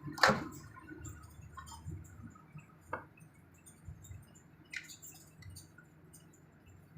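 Microwave oven's running hum stops, followed by one sharp, loud click of the door latch opening. Quieter clicks and clinks follow as the glass cup of heated water is handled.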